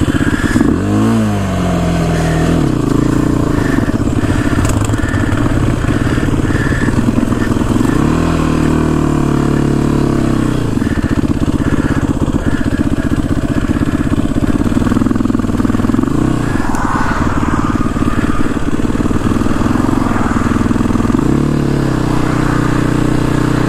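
Off-road vehicle engine running close by, coming in abruptly at the start and revving up in several surges: about a second in, for a couple of seconds around eight seconds, and again near sixteen and twenty-one seconds. Between the surges it settles back to a steady run.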